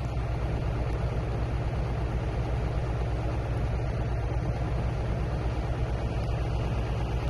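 John Deere 4755 tractor's six-cylinder diesel engine idling steadily, heard from inside the closed cab with the air conditioning blowing.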